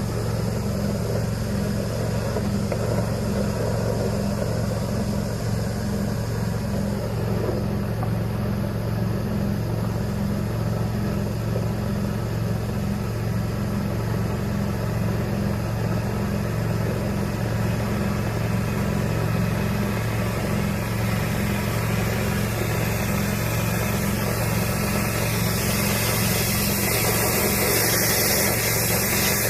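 A motor running steadily with a low, evenly pulsing hum, a hiss growing louder over the last few seconds.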